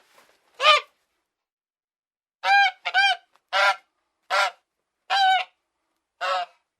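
A goose honking: one call, then after a pause of nearly two seconds a run of six more, each short and arching in pitch.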